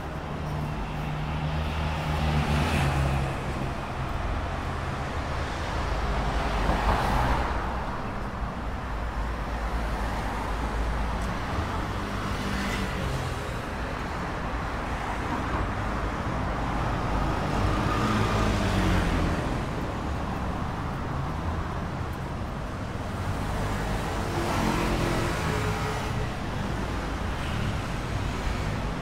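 Street traffic: motor vehicles passing close by on the road one after another, the low engine rumble swelling and fading about five times as each goes past.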